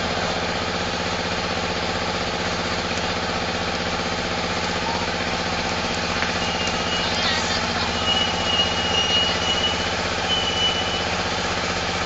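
Large engine idling steadily, with a constant low drone. Partway through, a few short high-pitched tones sound over it.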